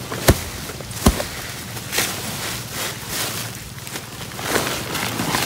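Rustling of harvested muguka leaves and woven plastic sacks as the leaves are packed by hand, with two sharp cracks about a third of a second and about a second in.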